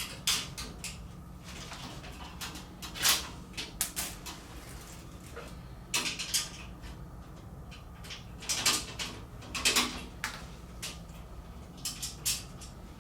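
Steel tool-cart brackets and their bolts and nuts being handled and fitted onto the cart's posts by hand: irregular metal clanks and clicks, some with a short ring, loudest near the start and in a cluster past the middle, over a steady low hum.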